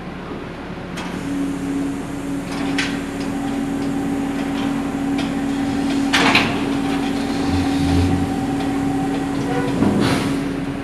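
Car ferry berthing at its vehicle ramp: a steady machine hum sets in about a second in, with sharp metal clanks about three and six seconds in and a short rush of noise near the end.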